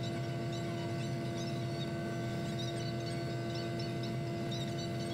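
Cat 259D3 compact track loader's diesel engine running at a steady speed: a constant drone with steady humming tones. Faint short high chirps are heard over it.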